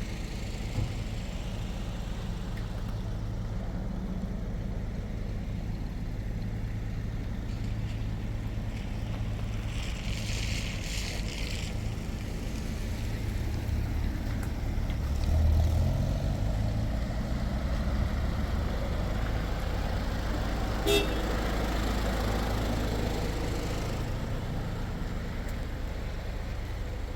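A motor vehicle's engine running, a steady low rumble. There is a short hiss about ten seconds in and a sharp click about twenty seconds in.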